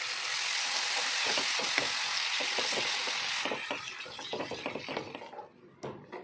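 Yogurt sizzling as it meets hot fried masala in a pan while a metal spoon stirs it in. The hiss is loud for about three and a half seconds, then dies down, leaving scattered scrapes of the spoon against the pan.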